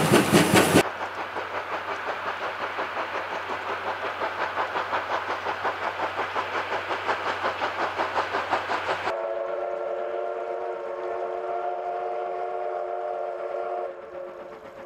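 C12 66 steam locomotive working, its exhaust chuffing at about four beats a second. About nine seconds in, its steam whistle sounds one long blast of about five seconds, several tones together, before the chuffing returns more faintly near the end.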